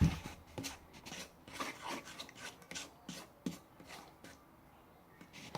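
Irregular scraping and rubbing strokes of a utensil working gel slime in a container, with a sharp knock at the start.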